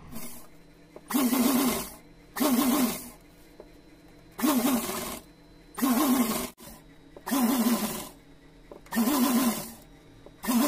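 Sewing machine stitching gota patti lace onto the edge of a fabric piece in about seven short runs, each under a second, with brief pauses between as the work is guided.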